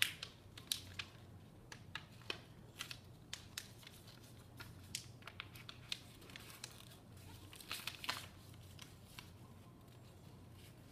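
A sheet of paper being folded and creased by hand against a wooden tabletop: irregular crinkles, rustles and short sharp ticks as the folds are pressed flat, with a denser patch of rustling about eight seconds in.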